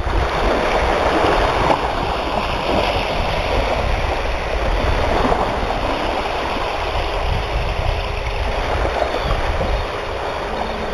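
Small sea waves breaking and washing up a sandy shore in swells, with wind buffeting the microphone.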